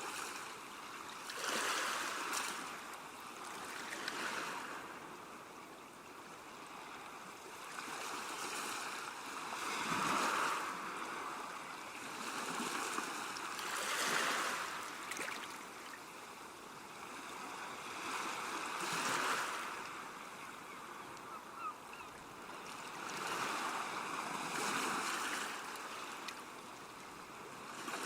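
Waves breaking on a beach, the surf swelling and falling back in uneven surges every few seconds.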